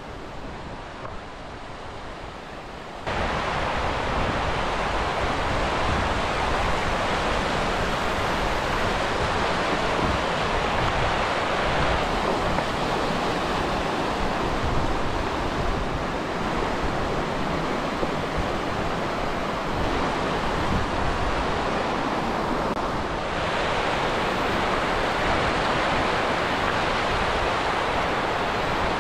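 A mountain stream rushing over boulders: a steady noise of running water, which gets louder about three seconds in.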